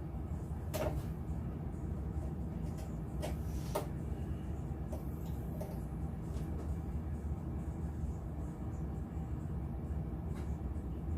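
A few sharp plastic clicks and knocks as hinge pins are forced into the hinges of a plastic kayak crate, over a steady low hum.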